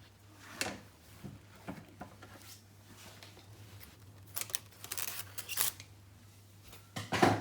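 Aluminium foil crinkling and rustling in short, scattered bursts as it is pressed over a container of sugared pineapple slices, with a louder cluster in the middle and another near the end.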